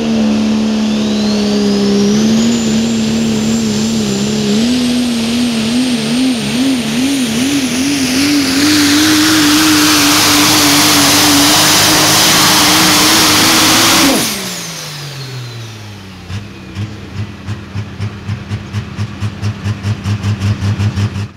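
A super stock diesel four-wheel-drive pulling truck's engine at full throttle. Its pitch wavers, then climbs as a high turbo whistle rises and a loud hiss builds. About fourteen seconds in the engine cuts off suddenly and its pitch falls away, followed by a rhythmic pulsing that speeds up near the end.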